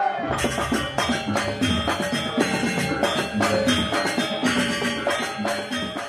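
Gamelan ensemble playing Janger dance music: struck metallophones ringing over drums in a quick, steady rhythm, growing quieter near the end.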